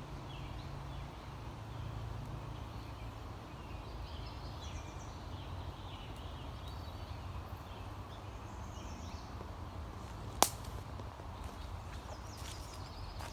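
Forest ambience: birds chirping intermittently over a steady low rumble, with one sharp loud click about ten seconds in.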